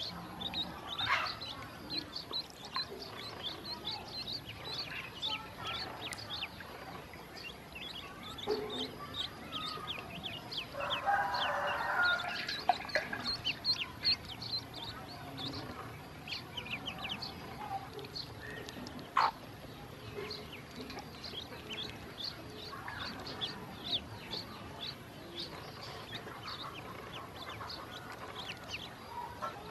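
Ducklings peeping: a steady stream of short, high calls that slide downward in pitch, many voices overlapping. About eleven seconds in, a louder, lower sound lasts about two seconds, and a single sharp click comes near the twentieth second.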